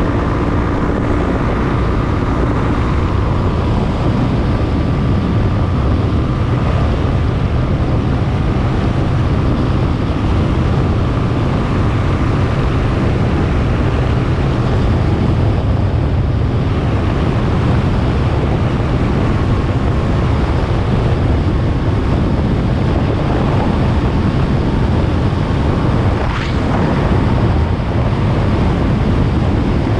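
Wind buffeting the microphone of a moving action camera, a loud steady rumble mixed with road noise. A brief sweeping sound comes near the end.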